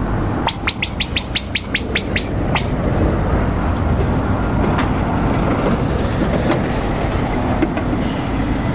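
Heavy truck diesel engines running with a steady low rumble. About half a second in, a quick run of about ten high chirps, each falling in pitch, lasts about two seconds.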